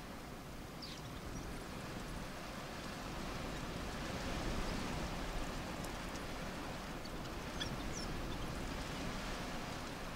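African wild dogs giving a few short, high-pitched twittering squeaks, about a second in and again near the end, over a steady background hiss.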